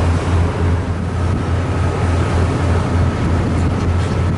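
Cruise boat's engines running with a steady low drone that throbs slightly, over a steady hiss of wind and water.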